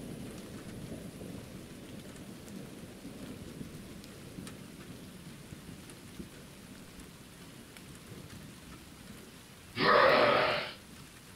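Steady low rain noise, then a loud burst of thunder lasting about a second near the end.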